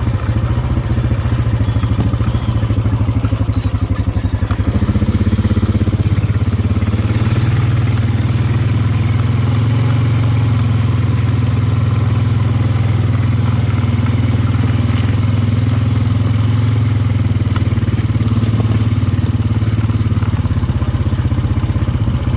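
ATV engine running steadily while riding a farm trail, with occasional clatter and knocks from the machine over rough ground.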